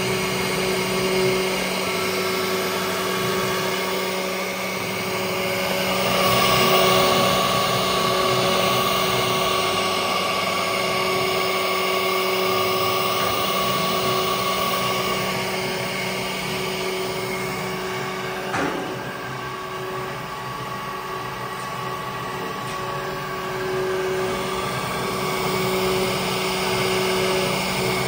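CNC router with an HSD spindle running: a steady machine hum and whine, with some higher tones that come and go.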